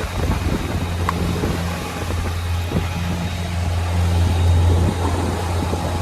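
Boat engine running steadily as a low, even hum, with wind and water noise over it.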